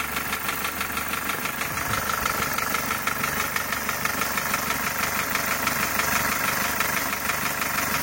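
Lifan X60's 1.8-litre four-cylinder petrol engine idling with a steady, rapid knock, like a small diesel running; the owner suspects a scuffed piston.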